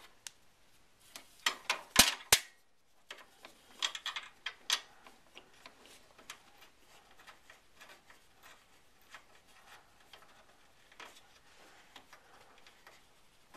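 Light clicks, scrapes and rustles of a detachable wireless antenna being turned by hand onto the threaded connector on the back of a wireless PCI card, with two sharp clicks about two seconds in and fainter scattered ticks after.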